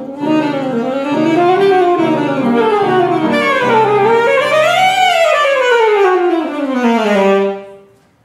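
Alto saxophone playing fast runs that sweep up and down in pitch, ending on a held low note that fades out about seven and a half seconds in.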